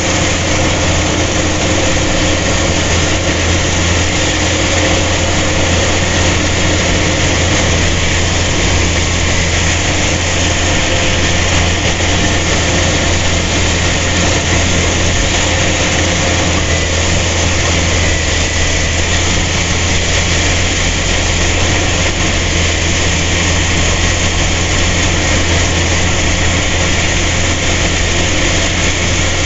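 Engine of a rice-harvesting machine running steadily at a constant speed: a low hum under a loud, even rush of machinery noise.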